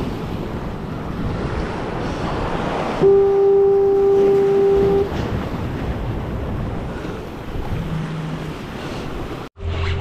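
Waves washing against jetty rocks, with wind on the microphone. About three seconds in, a horn sounds one steady note for about two seconds. The sound drops out abruptly near the end.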